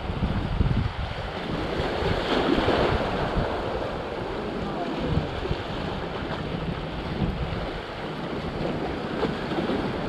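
Sea waves washing against concrete breakwater blocks, with wind rumbling on the microphone; the surf swells up about two to three seconds in.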